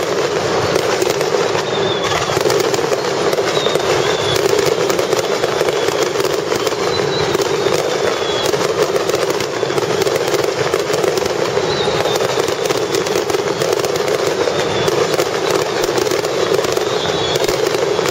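Aerial fireworks bursting continuously in a dense, unbroken crackle of many small pops, with short falling whistles every couple of seconds.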